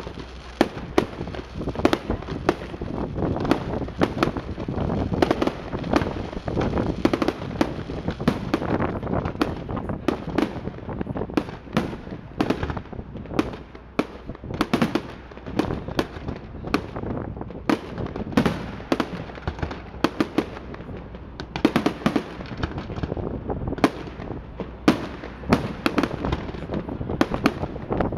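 Fireworks display: aerial shells bursting in a continuous barrage of sharp bangs, several a second at times, with crackling stars in between.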